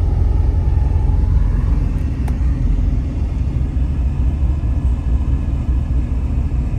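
A car on the move: a steady low rumble of engine and road noise, with a faint click a little over two seconds in.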